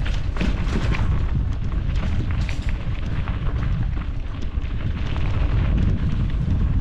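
Heavy wind buffeting and rumble on a GoPro action camera's microphone while riding a trail, with scattered knocks and rattles through it.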